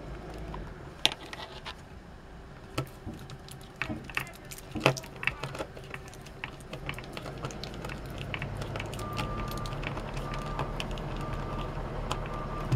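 A small screw being turned by hand with a screwdriver into a plastic toy gearbox casing: scattered light clicks, taps and scrapes of metal on plastic. A low steady hum builds in the background from about halfway.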